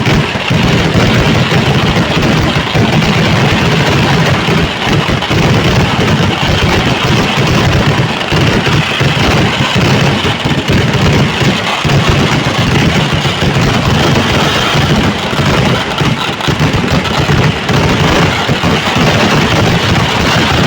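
Continuous barrage of fireworks explosions, the bangs so close together that they merge into one unbroken rumble with a steady crackle through it.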